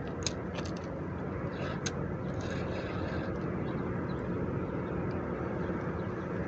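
Steady low outdoor rumble, with a few light clicks in the first two seconds.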